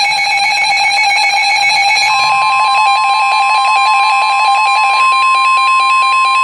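Weather radio alert alarm: a steady, buzzy electronic tone, joined about two seconds in by a pure steady tone of about a thousand hertz. That second tone is the NOAA Weather Radio warning alarm tone, which signals that a new warning is about to be broadcast.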